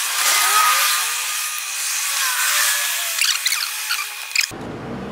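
Sped-up work noises: high-pitched scraping, rubbing and clicks as plastic parts and the washer fluid reservoir are handled and fitted under the dash. Near the end it cuts off suddenly to a low steady background noise.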